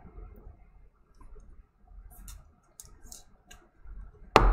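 Faint plastic clicks and rustles as a trading card is handled and slid into a clear plastic card sleeve, followed by a single loud knock near the end.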